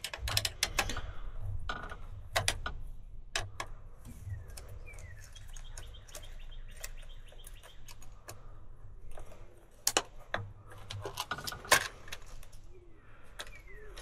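Hands working the wiring and capacitor inside a booster pump motor's opened end cover: irregular clicks and small taps of plastic and metal parts. A bird chirps faintly a couple of times.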